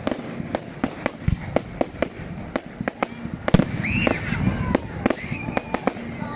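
Fireworks going off: a rapid run of sharp cracks and pops, with a louder bang about three and a half seconds in and high whistling tones just after.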